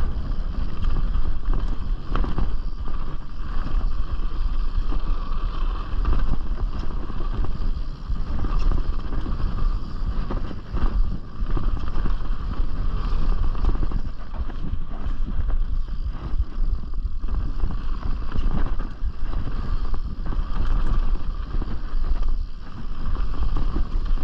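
Wind buffeting a chest-mounted action camera as a Canyon Strive mountain bike runs fast down a trail. Steady tyre noise runs under frequent rattles and knocks from the bike over bumps.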